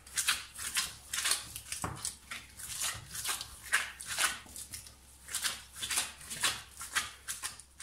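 Gloved hands kneading yeast dough on a countertop: soft, repeated squishing and rubbing strokes, about two or three a second.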